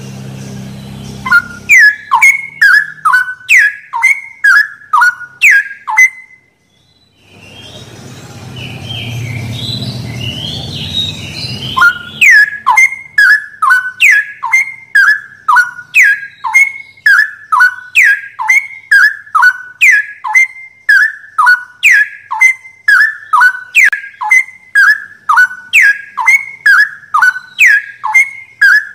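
Straw-headed bulbul (cucak rowo) singing: loud whistled notes, each dropping sharply in pitch, repeated about twice a second in long even runs. The runs break off for several seconds near the middle, where only a low hum and fainter scratchy notes are heard.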